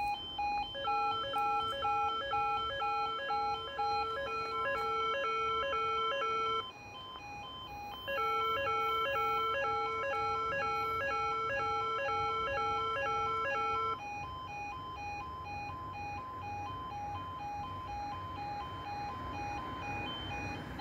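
E2S level crossing alarm sounder giving its repeating two-tone electronic warning. A second, quicker pulsing tone pattern is layered over it twice, for about six seconds each time, and drops out about 14 seconds in, leaving the plain two-tone pulse.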